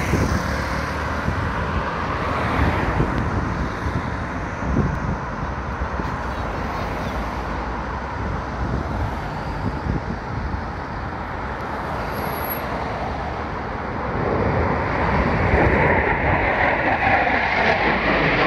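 Road traffic passing, with wind on the microphone. From about fourteen seconds in, the jet engine noise of approaching Panavia Tornado jets swells and grows louder.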